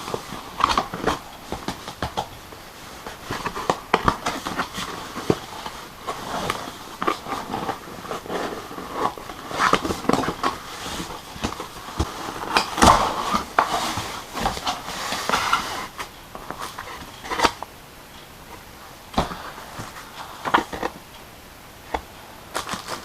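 Cardboard box and plastic packaging of a PC power supply being handled and worked open by hand: irregular rustling, crinkling and sharp clicks and knocks, none steady.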